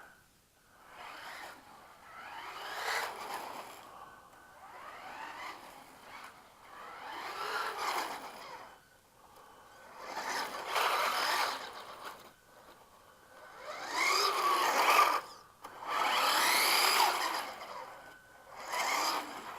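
Radio Shack Nitro Burner RC car's electric motor, run on a 3-cell LiPo, whining through about six passes. On each pass the pitch rises and then falls as the car speeds up and slows, with quieter gaps between.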